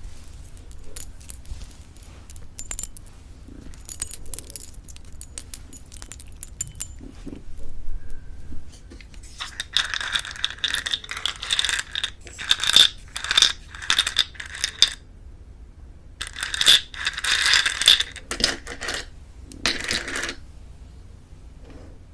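Close-miked crunching of crisp sugar-coated plum chewy jelly candy. Light scattered clicks come first, then two long stretches of dense crackling, about nine and about sixteen seconds in.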